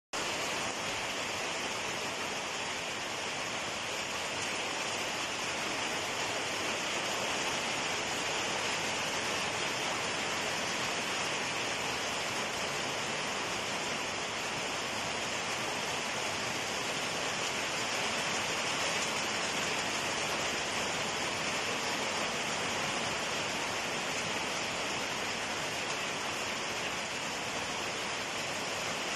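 Steady rain falling on dense garden foliage: an even, unbroken hiss with no let-up.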